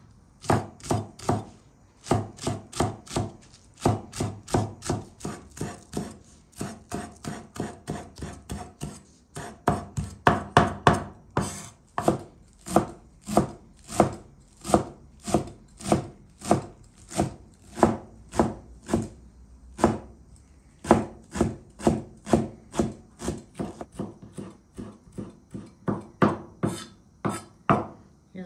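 Cleaver-style kitchen knife chopping green onions on a round wooden cutting board: a steady run of blade strikes on the wood, about two to three a second, with a few short pauses.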